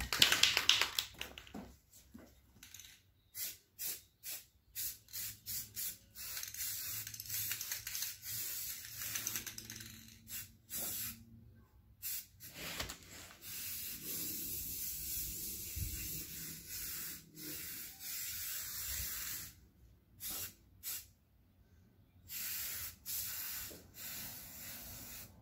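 Aerosol spray paint can hissing: a run of short bursts, then longer passes of several seconds each with pauses between them, as paint is sprayed onto a mower deck.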